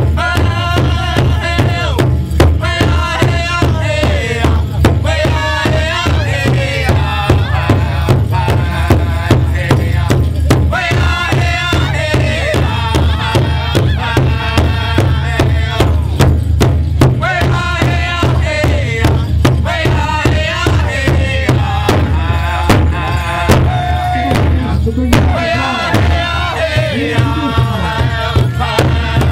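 Powwow drum group: several singers chanting together over a steady beat struck in unison on a large shared hide drum.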